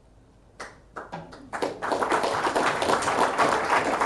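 Audience applauding: a few scattered claps start about half a second in and build within a second into steady applause.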